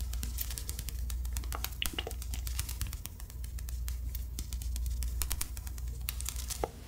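Thin foil wrapper being picked and peeled off an earth-shaped Planet Gummi by fingertips: a dense run of small crinkling clicks and crackles, close to the microphone, over a steady low hum.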